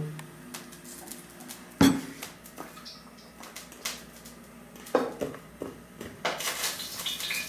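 Cookware and utensils clattering: a loud knock about two seconds in, then scattered knocks and clinks, busier near the end.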